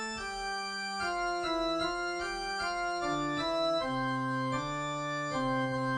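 Organ music: sustained chords and a stepping melody, with a low bass note entering about halfway and a long held chord near the end.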